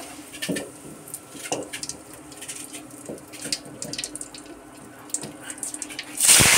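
Very hot cooking oil in an aluminium kadhai crackling and popping, with salt stirred into it. About six seconds in, a piece of fish goes into the oil and a loud burst of sizzling starts.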